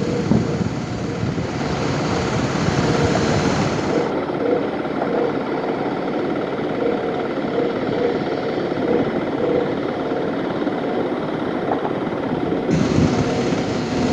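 Steady noise of wind buffeting the phone's microphone.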